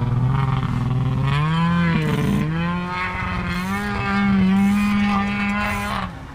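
An engine running steadily outside, its pitch climbing about a second in and then holding higher, with a brief drop near the end, as of a machine on the ice changing speed.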